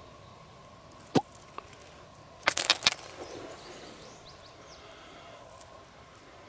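Pebbles clicking and scraping as a rock is picked out of loose gravel by hand: one sharp click about a second in, then a short clatter of stones about halfway through.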